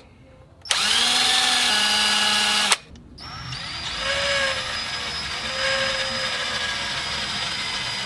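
DeWalt 18-volt cordless drill running in two spells. First comes a loud burst of about two seconds, with its bit in the plastic back plate of the wall mount. After a brief pause comes a longer, quieter run of about five seconds, driving a screw through the mount into the wall.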